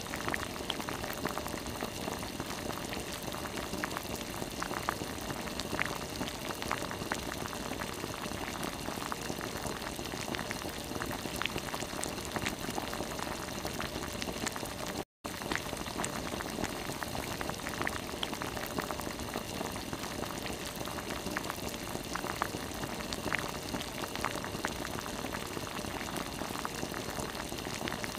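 A stream of water pouring into a shallow tarpaulin pool: a steady splashing rush with small scattered drips. It cuts out for a split second about halfway through.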